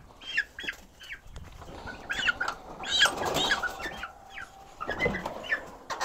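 Young chickens peeping and squawking in short, high calls, with wings flapping and a rustle in the middle as a bird is caught and handled.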